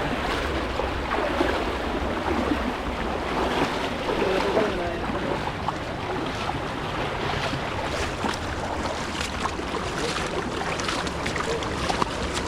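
Steady rush of flowing water with wind buffeting the microphone, and a few faint clicks.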